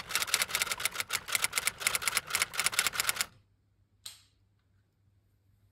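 Typewriter sound effect: a rapid run of key clacks that stops about three seconds in. A single brief swish follows about a second later.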